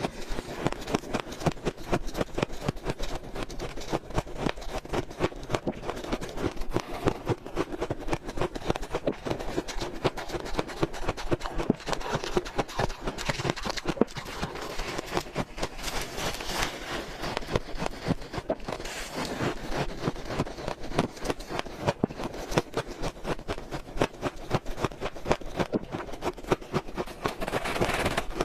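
A person biting and chewing shaved, powdery freezer-frost ice: a dense, rapid run of squeaky crunching that goes on without a break.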